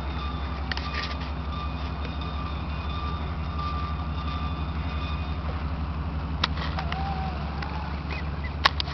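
Ferry MV Chelan's diesel engines running as a steady low drone while it docks, with a faint thin whine in the first few seconds and a few sharp clicks.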